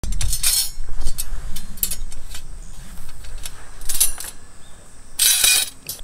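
Stainless-steel fire-pit frame and grill parts clinking, ticking and scraping as they are handled and fitted together, with a longer scraping burst about five seconds in. A low rumble of wind on the microphone runs underneath.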